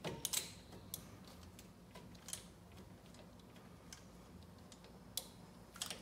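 A few faint, irregular metallic clicks from a pump-type brake caliper piston compressor being worked to push the caliper pistons back in.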